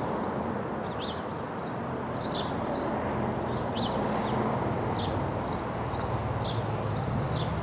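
Small birds chirping, with short high calls coming several times a second, over a steady low rumble and hum.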